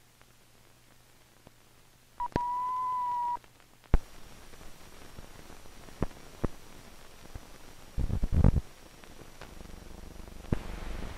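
A steady electronic beep lasting just over a second, then the hiss of an old film soundtrack with scattered clicks and pops and a short burst of crackle late on.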